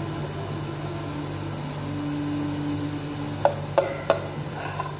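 Steady low background hum while thick cake batter is poured from a glass mixing bowl into a metal cake pan, with three quick clinks about three and a half seconds in from the wire whisk knocking against the tilted glass bowl.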